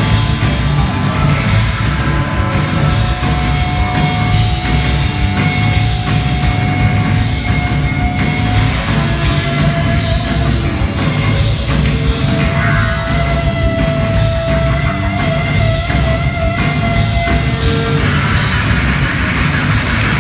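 Rock band playing live and loud on drums, bass, electric guitars and keyboard, with long held notes over the beat and no vocals.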